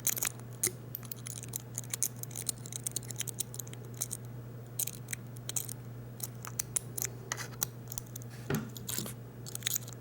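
Lock pick raking the pins of a Master Lock padlock: quick, irregular metallic scratching and clicking as the pick is jiggled in the keyway.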